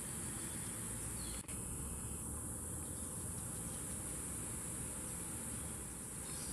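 Steady, high-pitched drone of a tropical insect chorus, briefly dipping about a second and a half in.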